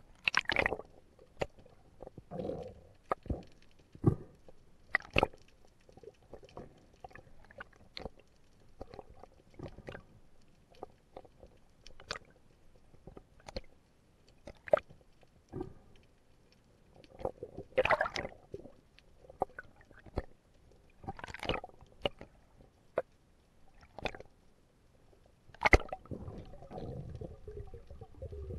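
Underwater sound heard through a submerged camera: irregular sharp clicks and knocks over soft gurgling water. Near the end a louder, low rumbling of moving water sets in.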